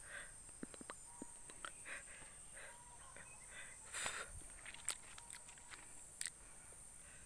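Faint outdoor ambience: scattered footsteps and light rustles on a leaf-strewn dirt path, with a louder rustle about four seconds in, over a faint steady high hum.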